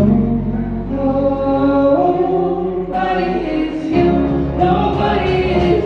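A band's song with voices singing long held notes in harmony over a steady low bass note.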